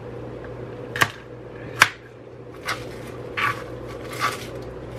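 Two sharp knocks of a chef's knife against a plastic cutting board while chopping cabbage, then a few short rustles of chopped cabbage pieces being handled on the board, over a low steady hum.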